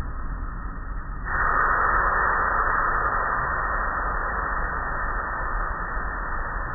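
Automatic tunnel car wash running, heard from inside the car: a steady rushing hiss over a low rumble. The hiss jumps louder about a second in.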